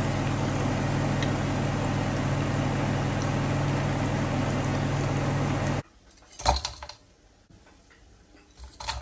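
Chicken pieces deep-frying in hot oil, a steady loud sizzle that cuts off suddenly about six seconds in. Then two short clinks as fried pieces are tipped from a steel slotted spoon into a steel bowl.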